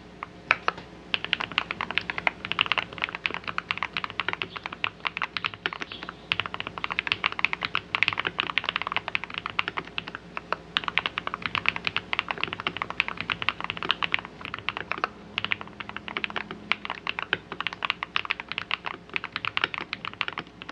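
Fast, continuous typing on a computer keyboard: dense key clicks, several a second, with brief pauses in the stream about six and ten seconds in.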